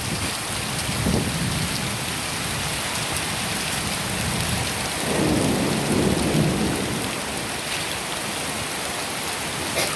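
Steady rain falling in a thunderstorm. A low roll of thunder swells about five seconds in and dies away about two seconds later.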